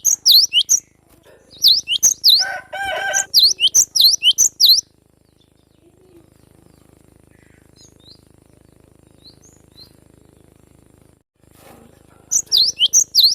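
Cinereous tit (gelatik batu) calling in quick runs of sharp, high chirps. A harsher, lower call comes about two and a half seconds in. After about five seconds there is a lull of several seconds with only a few faint notes, and the chirping starts again near the end.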